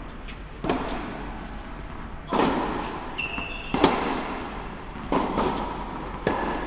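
Tennis balls struck by rackets and bouncing on an indoor hard court: about five sharp pops spaced a second or so apart, each echoing through the large hall. There is a brief high squeak a little past three seconds in.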